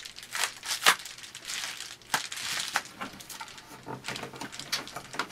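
Handling noise: rustling and crinkling, broken by irregular sharp clicks and knocks.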